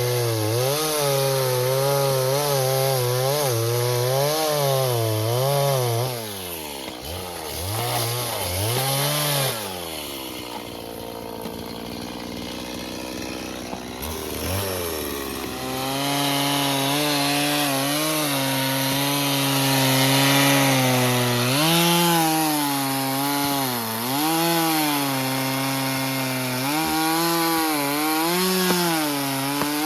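Stihl MS 170 two-stroke chainsaw cutting firewood, its engine pitch dipping and recovering as the chain bites. About six seconds in it falls back to idle, then revs up again around fifteen seconds and carries on cutting.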